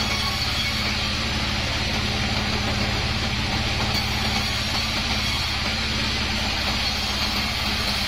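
Band sawmill running steadily, its motor humming with the blade ripping lengthwise through a beam of kapok (randu) wood. The sound stays even throughout, with no pause or change.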